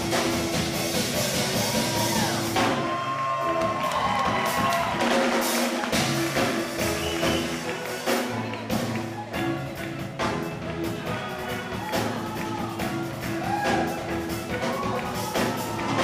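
Steel drum band playing live: steel pans ringing out over a drum kit beat, with no break in the music.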